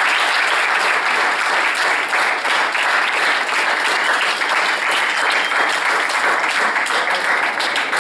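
A roomful of people applauding: steady, sustained clapping from a seated audience.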